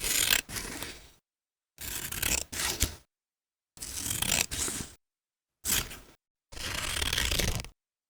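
Scissors cutting paper in five separate runs of about a second each, with a few sharp snips inside the runs and dead silence between them.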